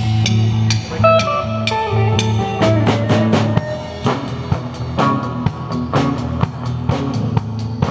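Live rock band playing with a steady beat: electric guitars, bass guitar and drum kit.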